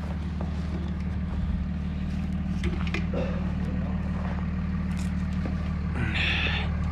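Diesel pickup engine idling steadily, a low even hum, with a short hiss about six seconds in.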